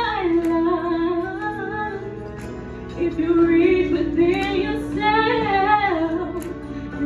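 Teenage vocal group singing: a female lead sings long, wavering held notes and runs over the others' sustained harmony, easing off about two seconds in and coming back strongly about three seconds in.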